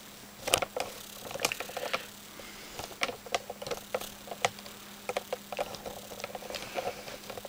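Irregular light clicks and taps, a few a second, some with a short ring, over a steady low hum.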